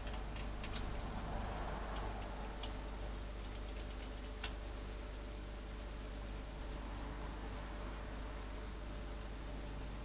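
Faint scratching of a fibreglass pen gently rubbed along the conductive-paint contacts at the end of a keyboard membrane ribbon, cleaning off tarnish, with a few light ticks and a steady low hum underneath.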